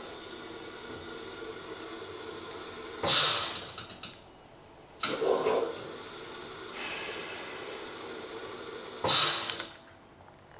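Carimali Multi coffee machine's milk foaming system during its automatic cleaning cycle: a steady running hum broken by three short spurts, about a second each, as the machine draws cleaning solution through the milk lines in stop-start fashion.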